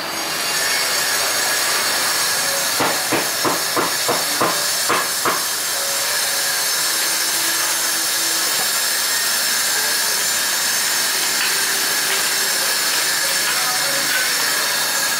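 A loud, steady hiss starts abruptly and holds without a break. A run of about nine quick knocks, roughly three a second, comes a few seconds in.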